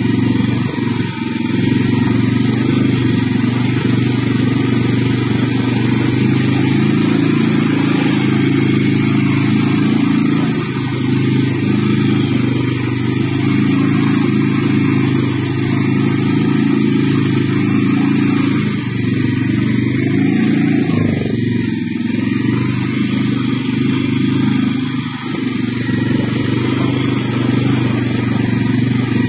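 CFMoto CForce 600 ATV's single-cylinder engine running steadily as the quad rides along a dirt forest track. The engine note eases and dips briefly about two-thirds of the way in, then picks back up.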